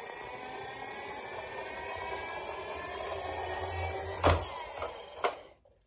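Toy garbage truck rolling along a wooden ramp, its plastic wheels and gearing giving a steady whir that builds slightly. A sharp knock comes about four seconds in and a lighter one a second later.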